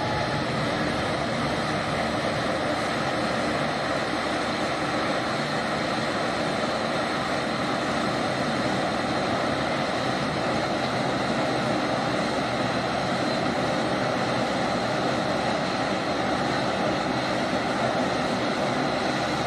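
Jet airliner taking off: the Pratt & Whitney geared turbofan engines of a Swiss Bombardier CSeries (Airbus A220) at takeoff thrust, a steady, even engine noise as it rolls down the runway and climbs away.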